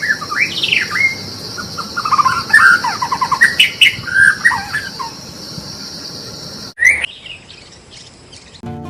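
A songbird singing a varied run of quick whistled notes and trills over a steady high buzz. About seven seconds in it cuts to a quieter recording with one short rising call.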